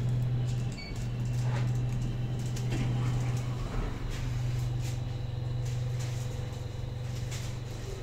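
Inside a passenger elevator car: a steady low hum, with a short electronic beep about a second in as a floor button is pressed, and a few light clicks.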